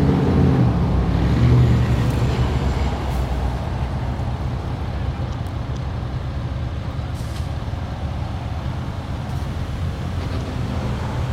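A heavy truck's engine running, louder in the first two seconds, then steady roadway traffic noise with a few faint brief hisses.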